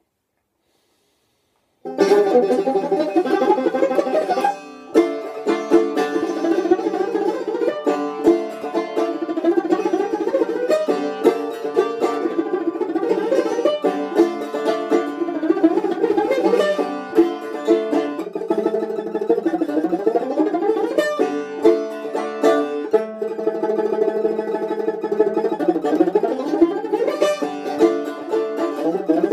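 A long-necked fretted lute played solo, with quick plucked notes and runs. It starts about two seconds in after silence and breaks off briefly near five seconds.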